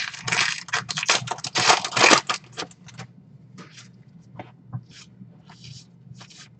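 Baseball trading cards being handled. There are about two seconds of dense rustling and scraping of card stock, then scattered light flicks and taps.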